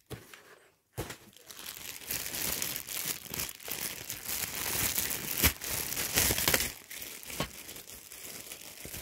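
Clear plastic packaging bag crinkling as it is handled and pulled open to unwrap a rainbow hamster bridge. It starts about a second in and continues as a dense, irregular crackle.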